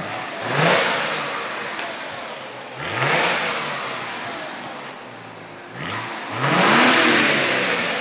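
A 2001 Audi S4's 2.7-litre twin-turbo V6 is blipped three times and falls back toward idle after each one, with a loud exhaust rush on every rev. The engine is burning off a Sea Foam treatment.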